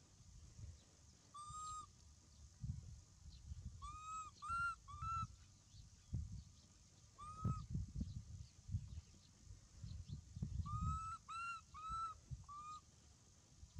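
Baby macaque giving short, high, arched coo calls in little runs: one, then three in quick succession, one more, then four or five together near the end, over a low rumble of noise.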